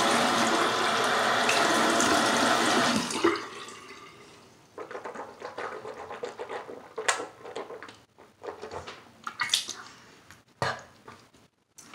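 A bathroom sink tap runs into the basin for about three seconds and is then turned off. Quieter, scattered water and mouth sounds follow as a mouth is rinsed out: small splashes, swishing and spitting into the sink.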